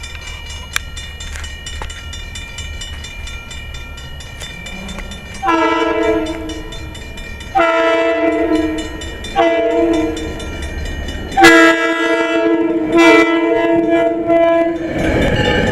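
Diesel freight locomotive's multi-chime air horn sounding five long blasts in a row, a few seconds after the steady rumble of the approaching train begins. Near the end a louder rush of engine and wheel noise comes in as the locomotive reaches the microphone.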